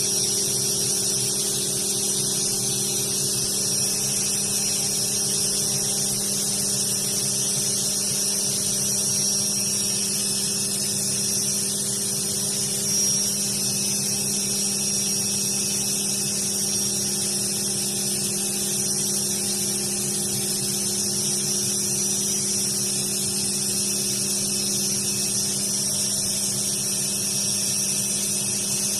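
Five-axis CNC machining centre running steadily while milling metal: a constant low hum with a thin high-pitched whine and a steady hiss over it.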